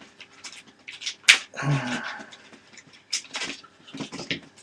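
Clicks and rustling from handling cardboard packaging and small plastic parts while a battery and its cover are taken out of a box drawer. There is one sharp click about a second in, and a brief low voice-like murmur just after it.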